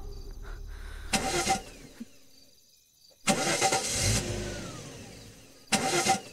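Ambulance engine cranked on the starter three times, in short bursts about two seconds apart, without catching: the vehicle has stalled and won't restart. A low engine rumble fades out in the first two seconds.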